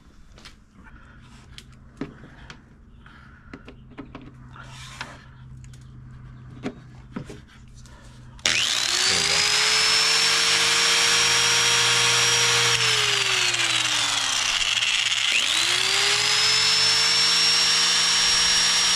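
Handheld electric angle grinder running off a portable power station's AC outlet: after some light handling clicks, it switches on a little before halfway and spins up with a rising whine, runs free, winds down with a falling whine when let go, then is switched on again and spins back up.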